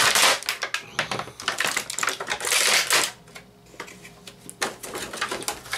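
Clear plastic packaging crinkling and crackling in the hands as toy accessories are pulled out of it. The crackle is dense for the first three seconds, drops away briefly, then starts up again near the end.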